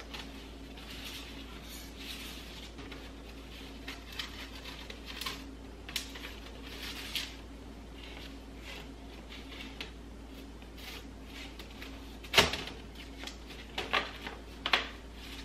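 Woven bamboo storage box handled on a countertop: light rustles and clicks of the bamboo weave, then a sharp knock about twelve seconds in as the lid is set on, followed by two smaller knocks.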